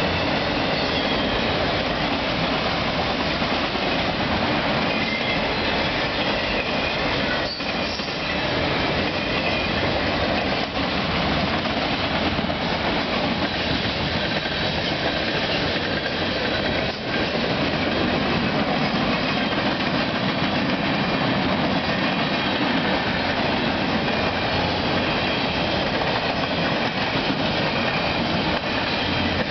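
Freight cars of a Canadian Pacific train rolling past close by: steady, loud wheel-on-rail noise that never lets up.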